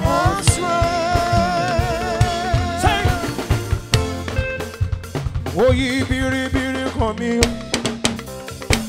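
Live church worship band music: a drum kit keeps a beat with snare and kick strikes under long, wavering held notes. The drumming grows busier near the end.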